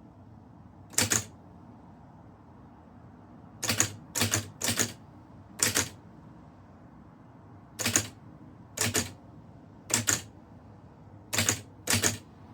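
Typewriter keys struck one at a time, about ten sharp clacks at uneven, unhurried intervals.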